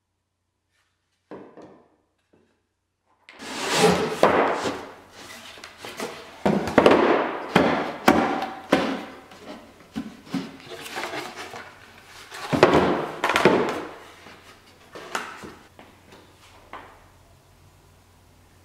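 Wooden drawer parts knocking and thudding against each other and the bench top as a dovetailed drawer is fitted together: a faint knock, then a long irregular run of knocks with louder clusters, thinning out near the end.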